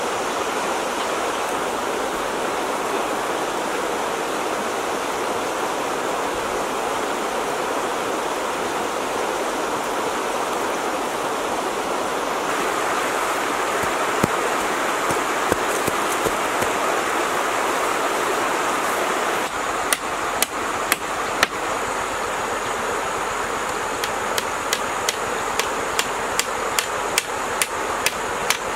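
Steady rushing noise like flowing water throughout. From about two-thirds of the way in, a claw hammer strikes a wooden rail in sharp knocks: a few at first, then about two or three a second near the end.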